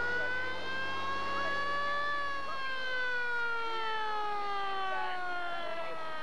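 Siren wailing: its pitch slowly rises for about two seconds, then winds steadily down.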